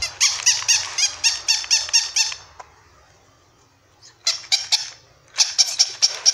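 Paw Patrol plush puppy toys yapping through their small speakers: quick runs of short, identical high yelps, about five a second. One run in the first couple of seconds, a pause, then two more runs near the end.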